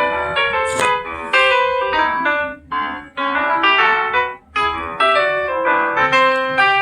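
Samsung Galaxy ringtone playing: a quick melody of separate keyboard-like notes, with short breaks in the tune about three seconds and about four and a half seconds in.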